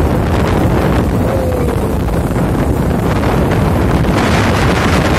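Steady wind buffeting the microphone on a moving speedboat, over the boat's running motor.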